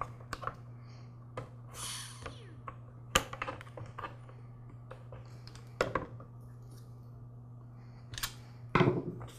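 Scattered light clicks and knocks of metal and plastic parts and pliers being handled as a string trimmer's small carburetor is worked off its mounting, with a brief scraping rustle about two seconds in. A low steady hum runs underneath.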